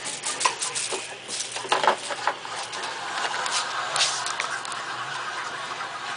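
Rustling and light clicking of plastic drawers, a plastic bag of beads and small craft items as a pet rat scrabbles behind the drawer cabinet. There are scattered clicks and knocks in the first couple of seconds, then a steadier rustle.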